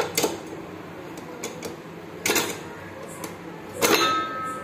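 Metal screw-type sandhagai (rice-noodle) press being cranked down by hand on steamed rice dough: scattered metal clicks and knocks from the handle and screw. A cluster of clicks about four seconds in comes with a brief thin squeak.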